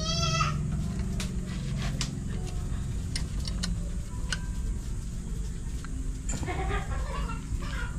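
A short wavering farm-animal call in the first half second, then a few scattered sharp clicks over a low steady hum. Voices come in near the end.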